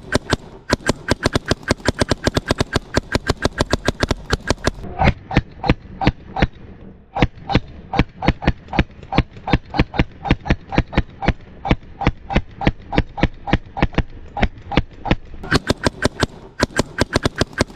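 Mechanical paintball markers firing in a steady stream of sharp pops, about three to four shots a second, with no real break.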